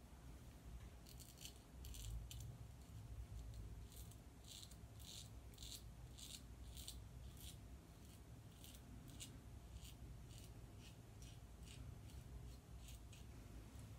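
Merkur Progress double-edge safety razor with a Gillette 7 o'clock blade scraping through lathered stubble: faint, short rasping strokes in quick runs of several at a time.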